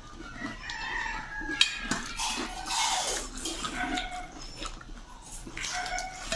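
Crisp pani puri shells being crunched and eaten, with spoons clicking and clinking against steel plates.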